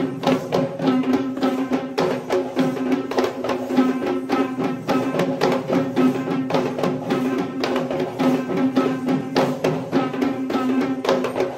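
Traditional Kandyan drums (geta bera) played in a fast, dense rhythm to accompany Kandyan dance, with a steady pitched tone held underneath the drumming.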